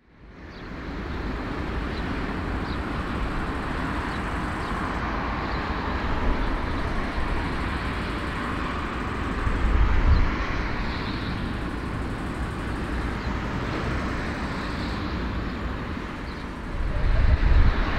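Airbus A340-300 airliner taxiing, its four jet engines a steady rush, fading in at the start, with heavier low rumbles about ten seconds in and near the end.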